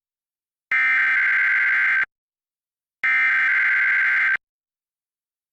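Emergency Alert System SAME header: two bursts of screeching digital data tones, each about a second and a half long with a second of silence between them, the second and third of the three header repeats that open an EAS test.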